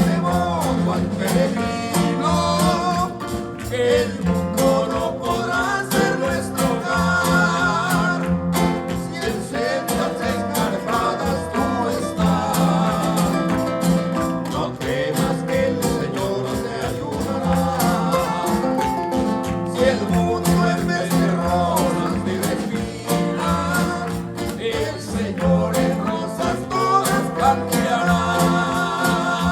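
A Christian praise song (alabanza) with a singing voice over guitar accompaniment and a steady beat.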